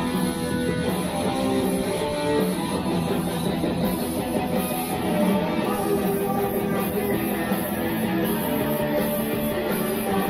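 Electric guitar, plugged in by cable, playing a rock tune with notes and chords changing continuously.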